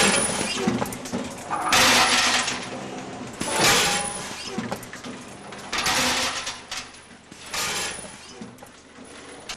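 Bolts clattering as weighed doses drop from a double linear weigher through a metal chute into a cardboard box, in five bursts about every two seconds.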